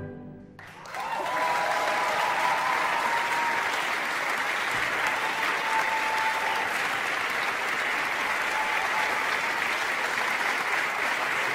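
The last sung note dies away into a brief hush, then audience applause breaks out about a second in and carries on steadily, with a few voices cheering over the clapping.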